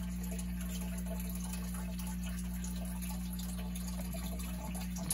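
Aquarium filter running: a steady low hum with water trickling back into the tank.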